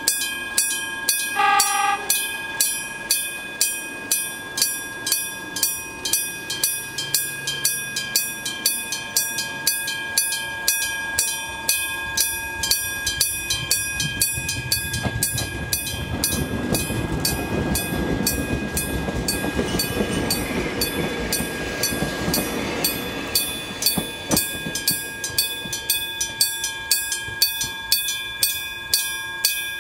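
An old electric-bell level-crossing bell rings on and on in even strokes, about two a second. A short horn sounds about a second and a half in. Midway through, an ex-Tokyu 7700-series electric train runs through, its wheels and motors swelling up and then fading.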